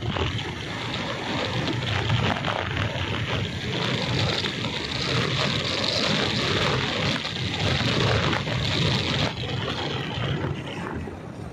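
Wind rushing over the microphone of a moving motorcycle, with the motorcycle's engine and road noise running underneath; the rushing eases about nine seconds in.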